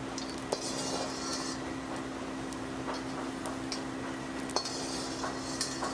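Metal utensils clinking and scraping against a pan as a cook works with hot oil, with scattered sharp clicks over a steady hiss and a steady hum.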